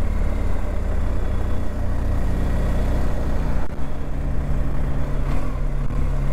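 BMW R 1250 GS Adventure's boxer-twin engine running steadily at low revs, with a brief dip in level a little past halfway.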